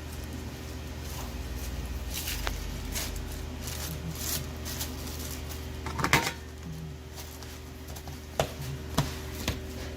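Scattered clicks and knocks of utensils and containers being handled during food preparation, over a steady low hum; the loudest knock comes about six seconds in, with three sharp clicks near the end.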